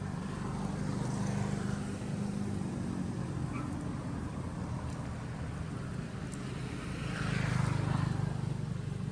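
An engine running steadily, growing louder briefly twice, most of all near the end.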